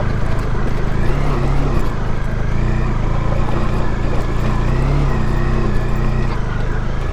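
Motorcycle engine running under way, its pitch wavering gently up and down, over a steady rushing noise.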